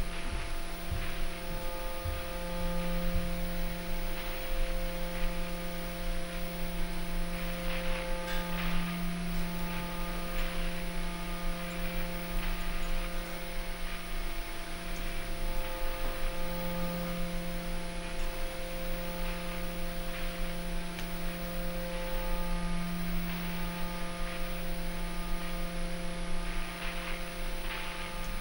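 A steady droning hum of several held tones at once, the lowest of them slowly swelling and fading every few seconds.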